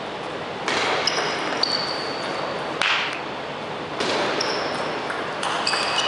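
Table tennis rally: the celluloid ball clicks off the bats and table several times, with short high squeaks of rubber-soled shoes on the hall floor as the players move.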